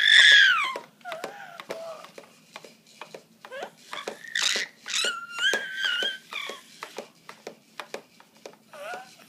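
A baby squealing and babbling while bouncing in a jumperoo: a loud high squeal that falls in pitch right at the start, then shorter calls and a longer held squeal around the middle. Short clicks and knocks from the bouncing jumperoo run through it.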